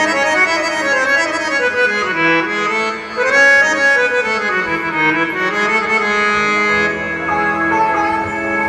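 Harmonium playing a melodic instrumental passage with sustained reedy notes.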